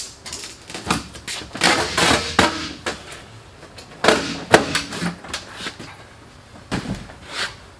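Irregular knocks, clicks and scraping rustles of hands rummaging through loose items and plastic trim, in clusters with short pauses between.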